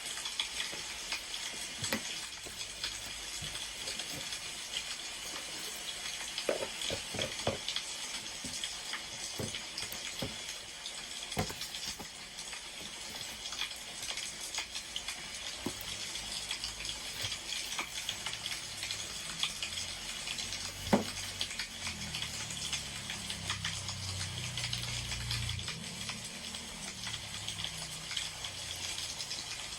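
Wood fire crackling: a steady hiss with scattered small pops and one louder pop about two-thirds of the way through. A low rumble comes in near the end.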